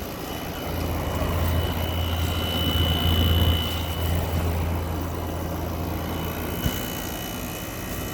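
Midea 5,000 BTU window air conditioner running steadily, with a low vibrating hum that comes in about a second in and drops away near the end.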